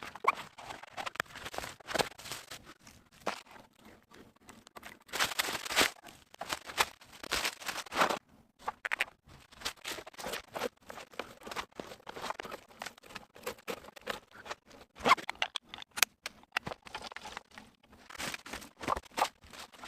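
Irregular scraping, scratching and clicking handling noises, with a few sharper knocks; the louder stretches come about five and eight seconds in and again around fifteen to sixteen seconds.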